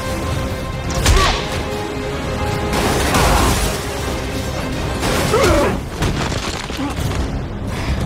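Action-film soundtrack: a dramatic score under heavy booms and crashing impacts, with big hits about a second in, around three seconds in and about five and a half seconds in.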